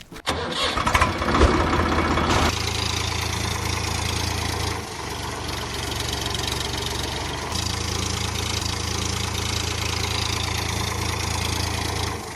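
Tractor engine sound starting with a rough, louder burst, then running at a steady idle. Its deep hum drops away for a few seconds in the middle and returns.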